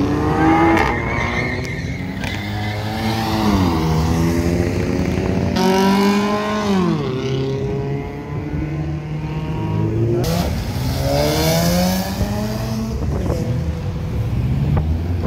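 Car engines revving hard as cars accelerate past one after another. Each run climbs in pitch and then drops sharply on a shift or lift-off, with the strongest runs in the first couple of seconds, around six seconds in and around ten to twelve seconds in.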